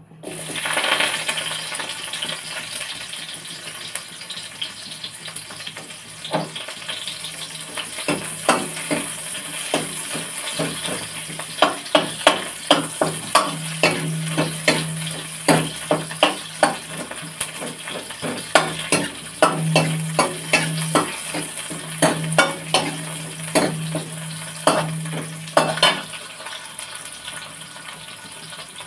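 Food frying in hot oil in a kadhai, with a loud sizzle as ingredients go in about half a second in and a steady sizzle after. A metal spatula then scrapes and knocks against the pan many times as the saag is stirred, stopping a few seconds before the end.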